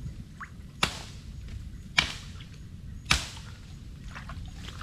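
Axe chopping into a small tree trunk: three sharp chops, roughly a second apart, as the tree is being felled.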